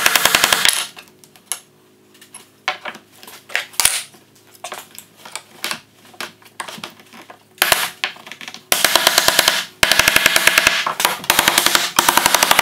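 Wooden mallet tapping thin bent wooden strips down into curved grooves cut in a thick ash slab: a quick run of sharp knocks at the start, scattered single knocks through the middle, then a fast, unbroken run of knocks from about nine seconds in.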